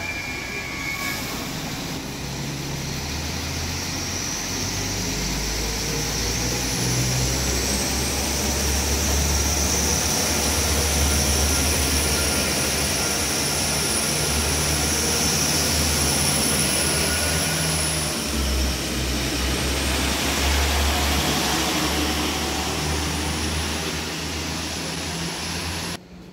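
Alstom Coradia LINT 81 diesel multiple unit running its diesel engines as it pulls out of the station. The engine sound builds over the first ten seconds or so with a high whine rising above it, stays loud, eases a little late on and cuts off suddenly near the end.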